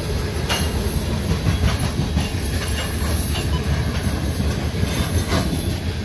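Norfolk Southern freight train's cars rolling past close by: a steady low rumble of wheels on rail, with several sharp clacks scattered through it.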